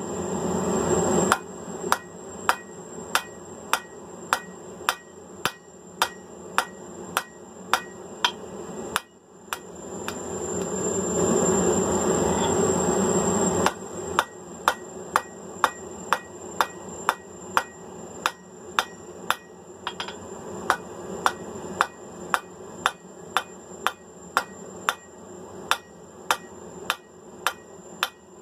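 Hand hammer striking hot mild steel bar on an anvil at a steady rhythm of about two blows a second, drawing the steel out. Partway through, a steady rushing noise rises for a few seconds, cuts off, and the hammering resumes.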